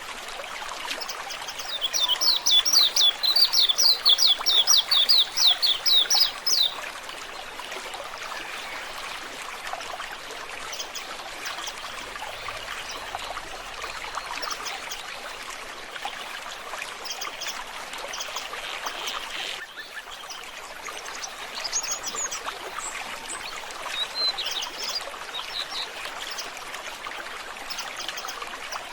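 Running water trickling steadily, with a small songbird giving a loud, rapid series of about twenty high, down-slurred notes, about four a second, from about two seconds in for some five seconds. A few fainter high calls come near the end.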